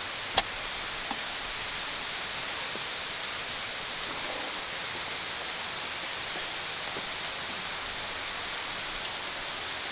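A steady, even hiss, with one sharp click about half a second in and a few faint taps later.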